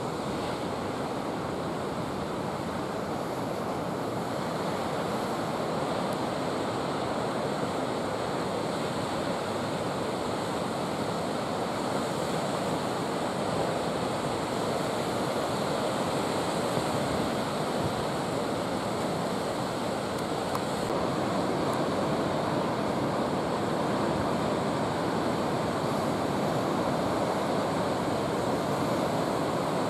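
Ocean surf breaking and washing, a continuous noise that swells a little louder later on, with some wind on the microphone.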